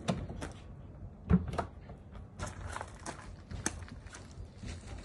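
A pull-out storage drawer in a camper van's rear bed unit slid shut on its runners, closing with one heavy thump about a second and a half in, followed by lighter knocks and clicks.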